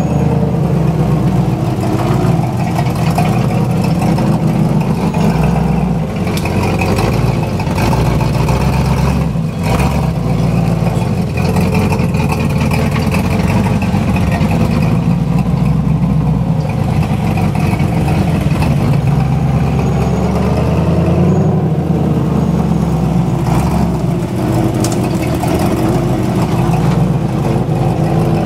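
Built, propane-fed 350 cubic-inch V8 of a Blazer-based rock crawler running at low revs as the rig crawls slowly over boulders, with the engine note shifting a little now and then.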